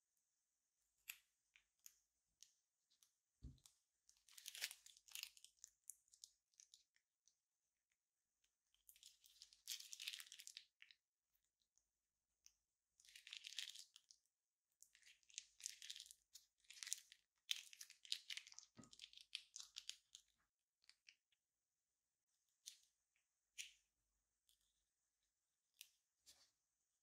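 Faint crinkling and rustling of a plastic piping bag filled with clear glitter slime as it is squeezed and handled, in irregular bursts a second or more long. There is a brief snip of scissors near the start and two soft knocks, one a few seconds in and one past the middle.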